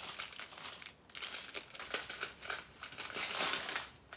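Clear plastic strip packets of diamond painting drills crinkling as they are handled, with a short lull about a second in.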